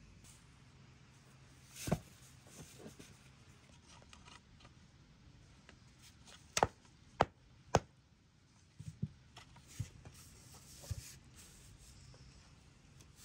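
A few sharp, irregular knocks: one about two seconds in, then three loud ones in quick succession about half a second apart, followed by several softer taps, over a quiet background.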